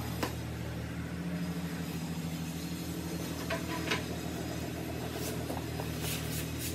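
A motor or engine runs steadily with a low hum. Over it come a few sharp clicks and taps of ceramic tiles being handled and set down: one near the start, two a little past the middle, and several near the end.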